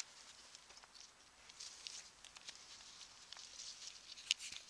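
Hands working loose garden soil around a strawberry plant's roots: soft rustling and crumbling of earth. A sharp click at the very start and another a little past four seconds in.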